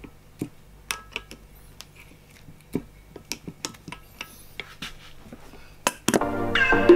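Scattered light metal clicks and clinks of an adjustable spanner on the jaw-plate bolts of a cast iron engineer's vice. Music starts about six seconds in.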